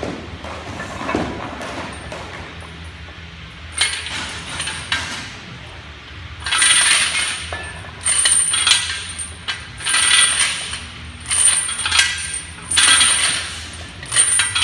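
Steel lifting chains hung from a barbell jangling and clinking against the floor during bench press reps. A burst of rattling comes each time the chain links pile down and lift off again, starting about four seconds in and repeating every second or two.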